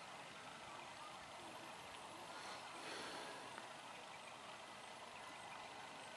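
Quiet outdoor background: a faint, even hiss with a slight swell about halfway through, and no distinct event.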